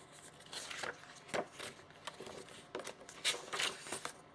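Faint, intermittent rustling and handling of kit packaging (paper and bagged parts) as items are taken out of a cardboard box, with a few louder brief rustles about a third of the way in and near the end.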